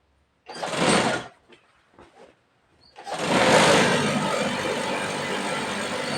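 Industrial feed-off-the-arm chainstitch sewing machine running briefly for under a second, then again in a longer steady run of about three and a half seconds, stitching a seam.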